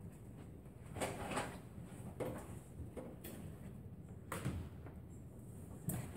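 Several irregular knocks and bumps from people moving about a room, the sharpest about a second in and just before the end.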